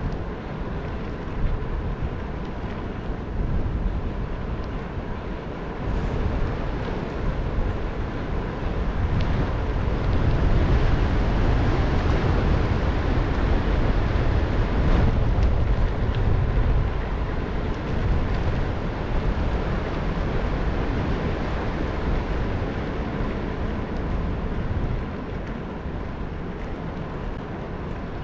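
Riding noise picked up by a GoPro on a moving bicycle: wind rushing over the microphone with tyre rumble and a few small knocks. It swells louder for several seconds in the middle, then eases off.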